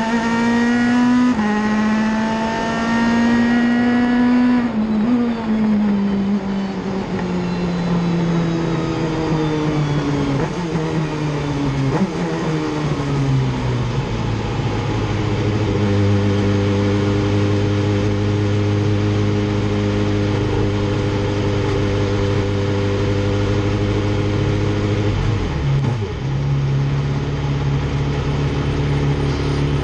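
Audi RS5 DTM race car's V8 engine heard from inside the cockpit. It revs up briefly, then its note falls steadily for about ten seconds. It then holds one steady note for about ten seconds and drops to a lower steady note near the end.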